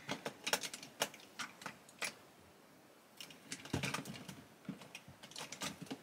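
Light clicks and clatters of makeup brushes and other small items being sorted through by hand in a search for a brush, a quick run of knocks with a short pause about halfway through.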